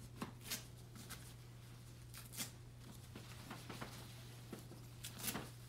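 Faint rustling with a few short crinkles and clicks as a disposable adult brief is handled and its adhesive tabs are fastened, over a low steady hum.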